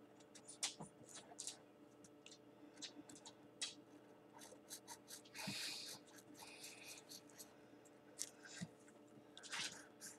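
Felt-tip marker scratching across paper in quick, irregular short strokes while colouring in, faint, with one longer stroke about halfway through.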